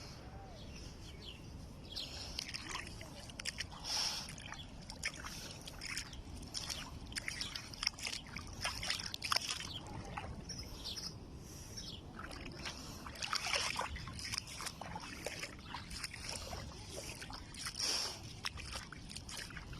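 Small sea waves sloshing and washing at the shoreline in irregular surges.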